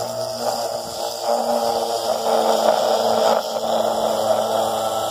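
Electric citrus juicer's motor running, its reamer cone spinning under a halved orange pressed down by hand. A steady hum, louder and rougher through the middle as the orange is squeezed.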